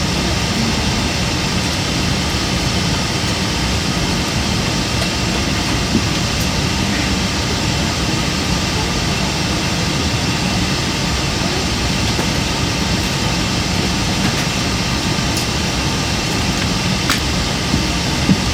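Steady jet airliner cabin noise: an even rumble and hiss of the air supply and engines, heard from inside the cabin. A few faint clicks come near the end.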